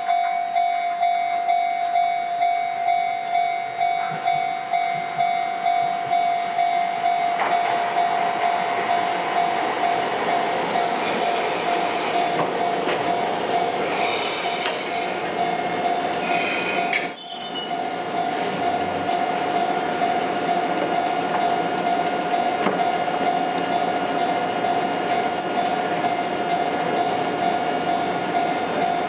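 Chikuho Electric Railway tram pulling into a stop and braking, with wheel squeal loudest around the middle, then standing at the platform. A steady tone runs throughout, and a regular pulse of about one and a half beats a second sounds over the first several seconds.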